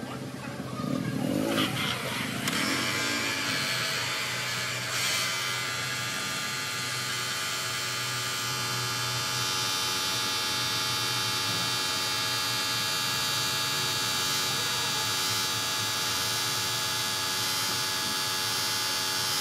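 Electric angle grinder with a buffing disc running steadily with a high motor whine as it polishes the chrome piston rod of an excavator hydraulic cylinder. It comes up to a steady run about two seconds in.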